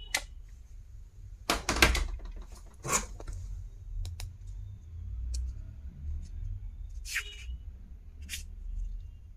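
Stationery items being handled on a surface: scattered clicks, taps and knocks, a quick cluster of them about two seconds in and single ones later, over a low steady hum.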